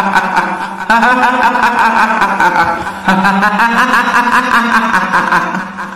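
A woman's high, eerie, quavering laugh, the stock kuntilanak ghost cackle, coming in drawn-out phrases: one runs on at the start, new ones break in about a second in and about three seconds in, and the last fades out near the end.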